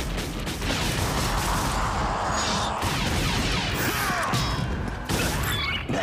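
Cartoon robot-battle sound effects: crashes and mechanical clanking layered over a dramatic music score, with a few falling whines and a sudden loud hit about five seconds in.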